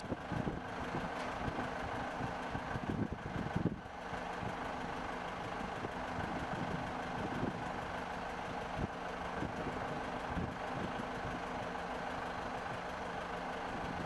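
Heavy machinery engine idling steadily, with a few faint knocks and a brief dip in level near four seconds in.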